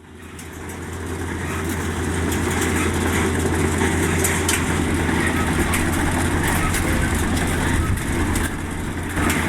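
Kubota DC-35 combine harvester's diesel engine running steadily, fading in over the first two seconds, with scattered clicks over the drone.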